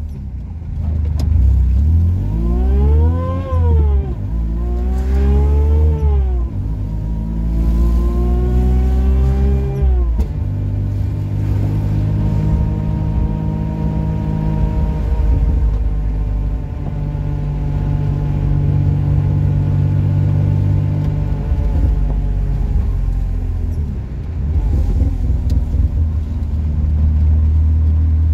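Supercharged three-cylinder Matiz engine heard from inside the cabin, pulling up through the gears: the pitch rises and drops at each shift, three times in the first ten seconds, then holds fairly steady at a cruise.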